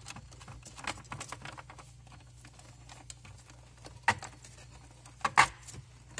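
Scattered small clicks and rustles of wires and a thick cord being handled at a hot tub's control pack, with a few sharper clicks in the last two seconds.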